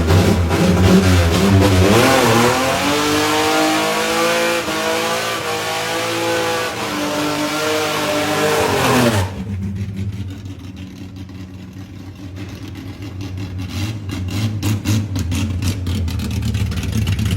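Chevrolet Caravan's naturally aspirated six-cylinder engine revving hard with a loud exhaust rumble, its pitch climbing and falling for several seconds. A little past halfway the high roar cuts off abruptly, leaving a lower, quieter engine burble that grows louder again toward the end.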